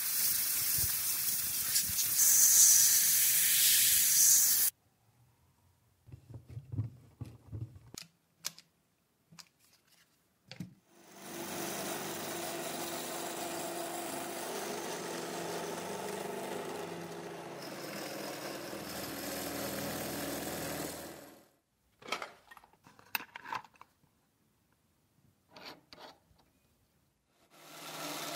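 A compressed-air blow gun hissing loudly for about four and a half seconds, forcing epoxy into cracks in the wooden plane body, then cutting off sharply. Later a benchtop drill press runs steadily for about ten seconds while boring new holes in the wood, with scattered clicks and knocks of handling around it, and the drill press starts again near the end.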